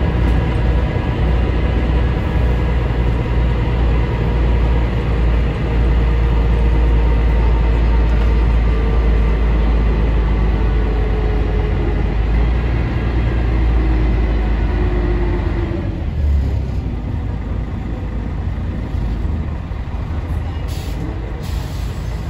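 Scania L113CRL bus heard from inside the passenger cabin while under way: the rear-mounted 11-litre six-cylinder diesel runs with a heavy rumble and a faint whine that slowly falls in pitch. About two-thirds of the way through the engine note drops away and the cabin goes quieter as the bus eases off.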